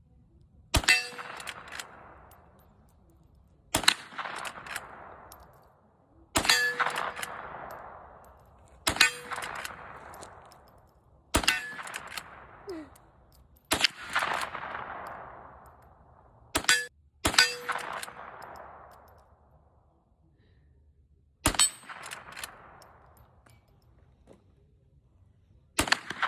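Henry Golden Boy lever-action rimfire rifle firing about ten shots, two to three seconds apart, each followed by the ringing clang of a steel target being hit. Two of the shots come close together about two-thirds of the way through.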